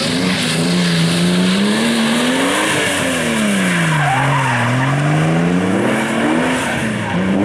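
BMW E36 competition car driven hard through a cone course on wet asphalt, its engine revving up and down with the throttle over tyre noise from the slide. The engine pitch climbs, drops low a little past the middle, then climbs again.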